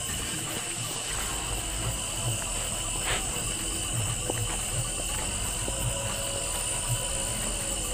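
Steady night chorus of crickets and other insects, a continuous high trilling, with frogs croaking every second or so and footsteps through grass.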